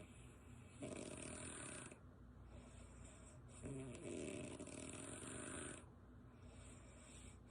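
Woman snoring in her sleep, her lips flapping and puffing as she breathes. There are two long, rough breath sounds, about a second in and again about halfway through, with quieter breathing between.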